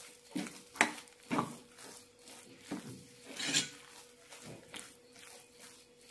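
Metal spoon stirring and scraping thick cooked semolina pongal in a stainless steel pan, in irregular strokes, the strongest about halfway through.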